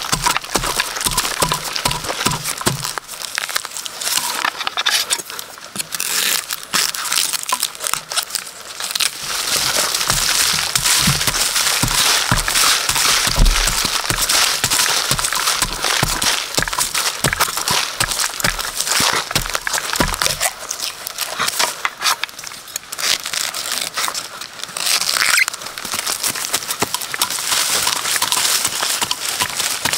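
Dense crackling and crunching of dry leaf litter and twigs, over a steady high hiss.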